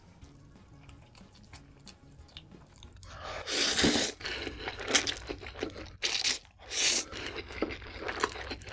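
Close-miked noodle slurping and chewing. Loud sucking slurps begin about three seconds in and come again near seven seconds, with wet chewing and crackly mouth sounds between; the first few seconds hold only faint mouth sounds.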